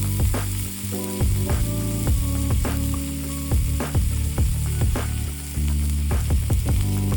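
Meat sizzling and frying on a small iron griddle plate, a steady hiss throughout, under background music with bass notes and a regular beat.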